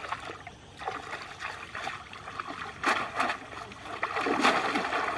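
Shallow muddy water splashing and sloshing as hands scoop and churn through it while fishing by hand, with a sharp splash about three seconds in and a longer, louder splashing burst near the end.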